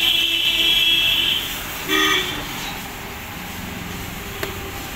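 A vehicle horn: one long honk that cuts off about a second and a half in, then a short second honk about two seconds in.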